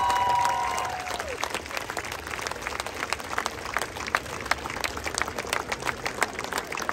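Large outdoor crowd clapping and applauding. Voices held in a long cheer fade out about a second in, leaving dense clapping.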